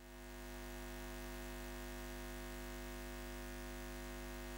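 A steady low hum made of several held tones, swelling up over about the first second and then holding level.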